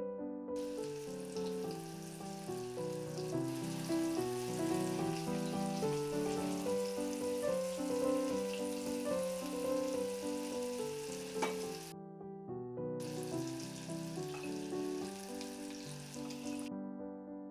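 Chicken meatballs sizzling as they fry in oil in a pan, over piano background music. The sizzle cuts out briefly about twelve seconds in and stops near the end. There is a single light knock at about eleven seconds.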